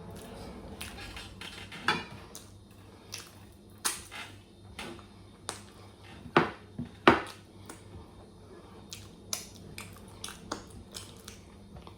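Close-up eating sounds: a string of short crunches and clicks from chewing and utensils on a plate, with two sharper, louder ones about six and seven seconds in.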